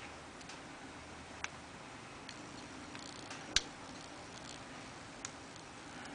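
Scattered light metallic clicks of a lock pick and tension wrench working the pins in the keyway of an American A30 padlock, with one louder click about three and a half seconds in, over a faint steady hum.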